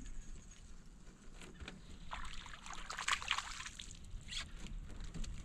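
Light splashing and sloshing of water as a hooked crappie is reeled up toward the boat, busiest about two to three and a half seconds in, with another short splash a little later.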